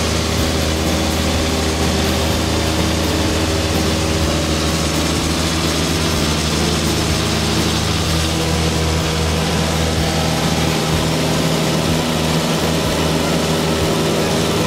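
Cessna 152's four-cylinder Lycoming engine and propeller running steadily in flight, heard from inside the cabin as a constant engine note under a steady rush of noise.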